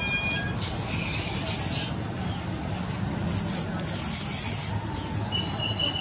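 Baby monkey giving about five shrill squeals in quick succession, each wavering up and down in pitch.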